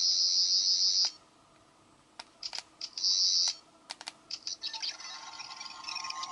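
UK 13th Doctor sonic screwdriver toy playing its electronic sound effects: a high buzzing tone for about a second, a shorter burst of it about three seconds in, then a warbling effect with several tones near the end. Sharp clicks sound between the bursts.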